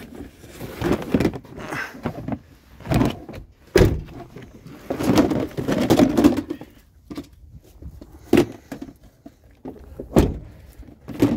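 Empty storage bins being handled and moved: a run of thunks and sharp knocks with scraping and rattling in between.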